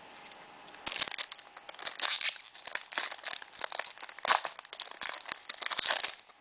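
Foil wrapper of a Pokémon EX Dragon booster pack being torn open and crinkled by hand: dense, irregular crackling that starts about a second in and stops just before the end.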